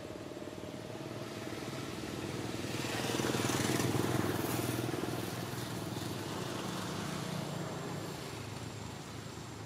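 A motor vehicle's engine passing by, growing louder to a peak about four seconds in and then fading.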